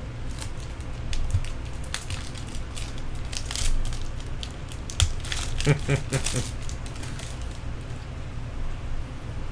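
Trading-card packs and cards being handled: crinkling of pack wrappers and quick clicks and rustles of cards being flipped through.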